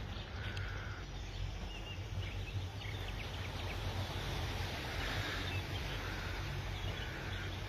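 Rural outdoor ambience: a steady low rumble with a few faint, short bird chirps scattered through it.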